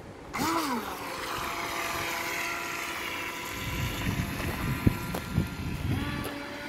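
Electric motor of a HobbyKing FT009 RC speedboat whining as the boat runs, over a hiss of water. The whine starts suddenly, swoops up and back down, then holds a steady pitch and shifts again near the end. A few low knocks come in the second half.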